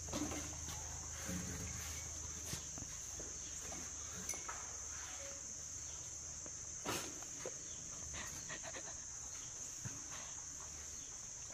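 Steady high-pitched insect chorus, with scattered faint clicks and knocks.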